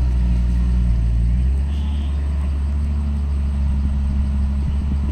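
Heavy diesel earthmoving machine running under load with a deep, steady rumble; the engine note shifts about a second and a half in.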